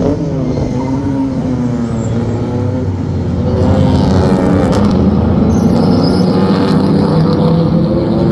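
A pack of historic Jaguar E-type race cars with straight-six engines running hard. Many engine notes overlap, rising and falling, and they grow louder about three and a half seconds in as the pack comes nearer.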